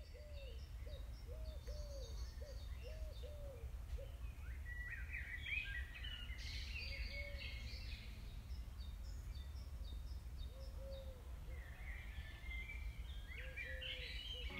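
Outdoor ambience of birds chirping and calling over a low, steady rumble. A run of short, low, repeated calls fills the first few seconds and comes back a few times later, among higher chirps.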